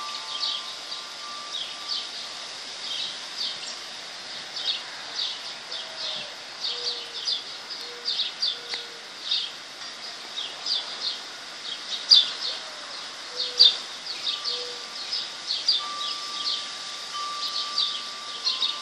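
Several birds chirping and singing together in a dense, steady chorus of short high notes, with a lower repeated cooing call in two runs and a long ringing tone near the end.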